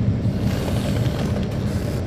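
Caterpillar C13 ACERT diesel engine of a 2009 NABI 40-SFW transit bus running with a steady low hum, heard from inside the bus. A hiss of road or air noise rises over it from about half a second in.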